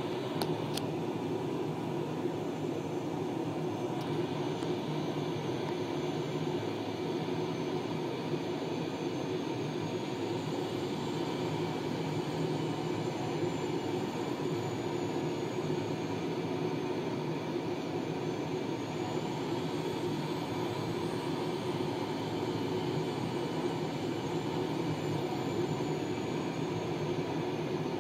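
Steady noise of a fighter jet's engines and cockpit airflow heard inside the cockpit during a night carrier approach, unchanging throughout, with two faint clicks in the first few seconds.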